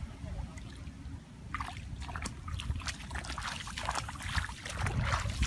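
Shallow muddy water trickling and sloshing as someone wades through it on bare legs.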